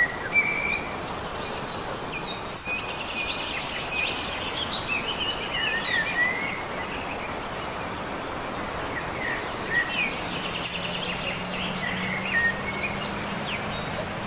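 Small birds chirping and trilling, over the steady rushing wash of a mountain-valley stream. A low steady hum comes in about ten seconds in.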